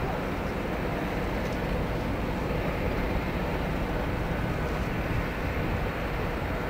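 Steady low rumble and hiss of outdoor stadium ambience, with no music.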